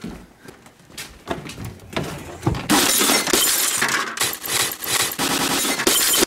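Glass aquarium tank being smashed on a wooden deck: a few separate thumps, then from about three seconds in a long stretch of breaking and shattering glass that stops just before the end.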